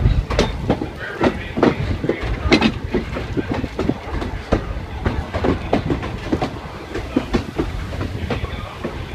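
Railroad car rolling along the track: a steady low rumble with many irregular clicks, knocks and rattles of wheels and car body on the rails.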